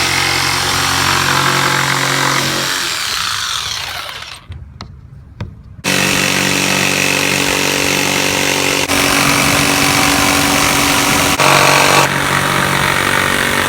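Power tool running loud and steady, winding down and stopping a few seconds in. After a short pause with a couple of clicks, it starts abruptly again and runs until the end.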